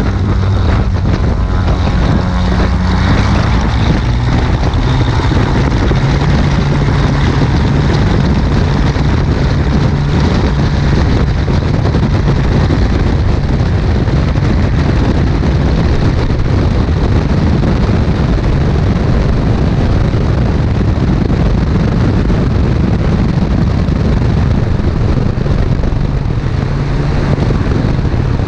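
Single-engine Cessna's piston engine and propeller running steadily, a loud drone over rushing air noise. The engine note steps slightly lower about three seconds in.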